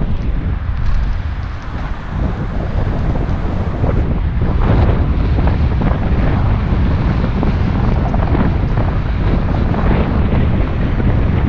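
Wind buffeting the microphone: a loud, steady low rumble that flutters unevenly, easing for a moment about two seconds in.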